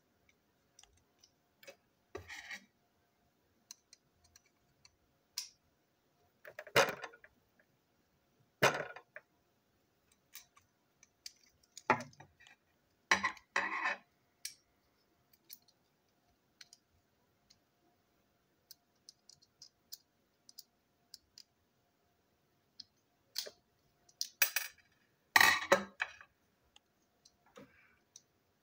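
Small plastic toy-train wagon parts and a screwdriver handled on a tabletop: scattered clicks and clacks with quiet gaps between, a few sharper knocks spread through and a cluster of louder ones near the end.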